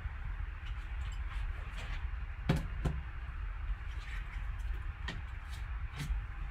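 Handling of a cardboard box with a foam insert and a plastic graded-card slab: four short knocks and taps, the loudest about two and a half seconds in, over a steady low hum.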